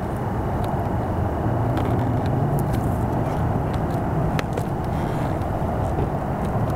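Steady low hum, with scattered light clicks and taps as hands press a plastic stick-on window visor against a car's door frame.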